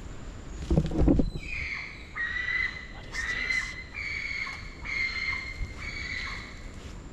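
Spider monkey giving a run of five or six high, steady calls, each about half a second to a second long. A short, loud thump in the foliage comes about a second in, just before the calls begin.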